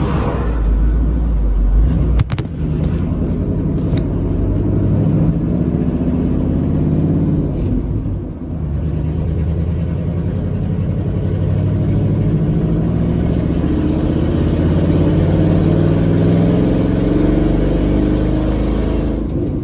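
Old four-wheel-drive pickup truck's engine running and pulling, its exhaust loud for want of a muffler. The engine pitch dips about eight seconds in, then climbs steadily as it accelerates. A couple of sharp clicks sound about two and four seconds in.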